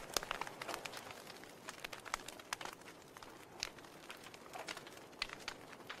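Wood fire crackling in an open fireplace: irregular sharp pops and snaps over a low steady hiss.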